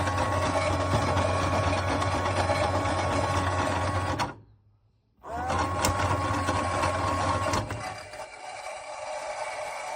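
Theo Klein Miele toy washing machine running with a steady electric whir. It stops about four seconds in, starts again a second later, and drops to a faint hiss near the end.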